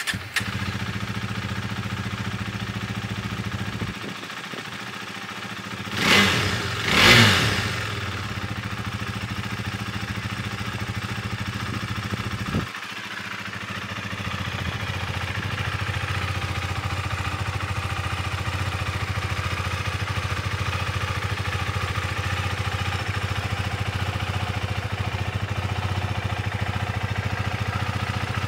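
KTM 390 Duke's single-cylinder engine catching and idling, revved twice about six and seven seconds in, then settling back to a steady idle.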